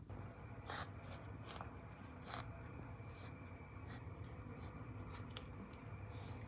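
A Munchkin cat reverse sneezing: a run of short, noisy, snorting inhalations, roughly one a second, over a low steady hum.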